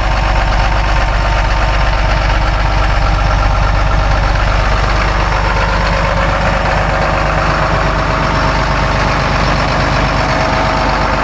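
John Deere 8100 tractor's six-cylinder diesel engine running steadily, heard from inside its cab.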